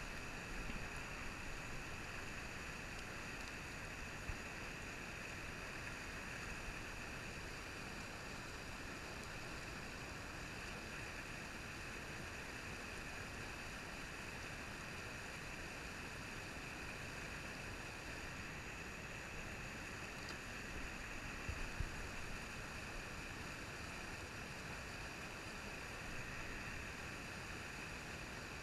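Steady rushing of a trout stream riffle, fast water running over rocks, with a few soft low bumps along the way.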